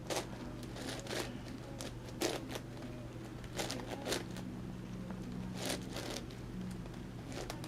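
Plastic pieces of an 11x11x11 Rubik's cube clicking and clacking irregularly as its layers are turned during center solving, over a steady low hum.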